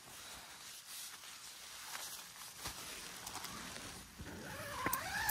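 Rustling and handling noise inside a nylon tent as the phone is moved about, with soft scattered clicks, and a brief pitched sound near the end.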